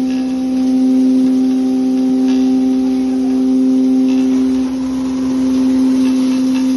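Electric spice grinder machine running with a loud, steady hum. The hum wavers slightly about two-thirds of the way through.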